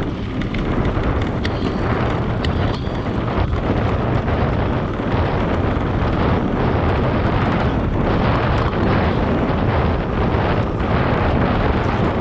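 Wind buffeting a bike-mounted action camera's microphone as a mountain bike rolls fast along a dirt track, with a steady low rumble from the tyres and frequent short rattling knocks from the bike.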